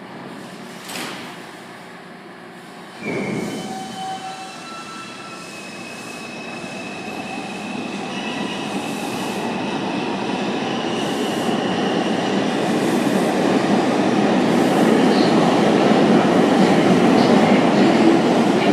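R142 subway train pulling out of the station, a sudden start about three seconds in, then its traction motors whining and the rumble of wheels on rail growing steadily louder as it gathers speed, with some wheel squeal.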